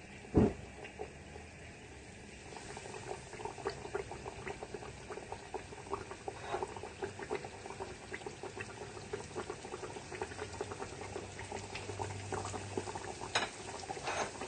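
Flour-coated chicken pieces deep-frying in hot oil, a dense steady bubbling crackle that starts about two and a half seconds in. A single loud thump near the start.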